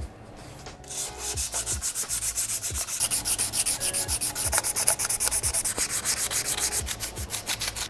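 Sandpaper rubbed quickly back and forth on the gasket face of an engine block, in fast even strokes of about eight a second, starting about a second in.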